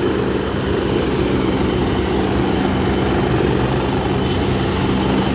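Helicopter running on a helipad just after landing, a steady engine hum with a fast, even rotor chop.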